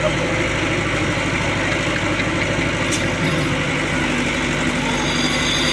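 Diesel engine of an ACE mobile crane running steadily at low speed, with a single short click about three seconds in.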